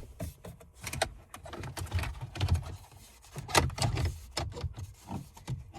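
Plastic clicks and knocks of an aftermarket Android radio being pushed into an Audi A3's dash to seat it flush on its push tabs: irregular taps, loudest about three and a half seconds in.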